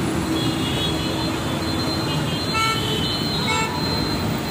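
Steady road traffic noise, with two short vehicle horn toots about two and a half and three and a half seconds in.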